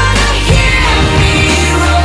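Pop music: a singer's voice over a band backing, loud and continuous.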